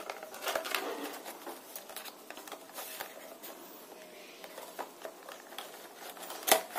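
Scissors snipping and scraping along the seam of a cardboard box, with the rustle and tapping of fingers handling the box; faint, scattered small clicks, and a louder sharp snap near the end.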